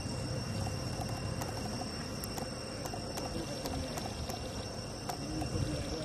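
Steady drone of insects in several high tones, over a low rumble, with scattered faint clicks.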